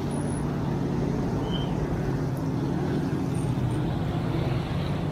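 A pack of short-track pro race trucks running past together, their engines blending into one steady drone.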